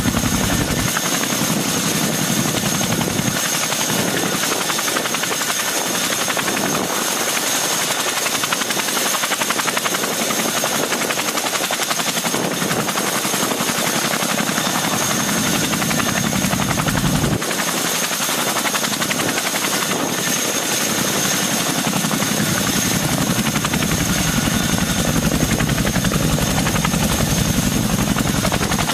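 CH-47 Chinook tandem-rotor helicopter running on the ground, its two rotors turning under power with a steady rotor beat. A thin, steady high turbine whine sits over the noise of its twin turbine engines.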